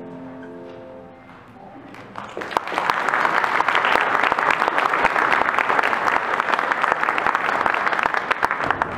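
The choir and piano's last chord dies away, and about two seconds in an audience breaks into applause, dense, steady clapping that carries on.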